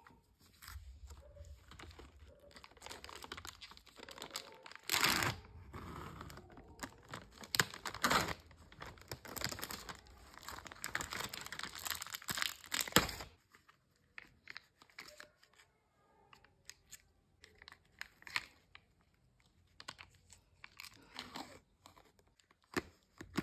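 Plastic snack packaging torn open and crinkled by hand, with loud rips about five and eight seconds in. Later come quieter, scattered clicks and crackles as the plastic tray is handled and the peel-off lid is pulled from the dip cup.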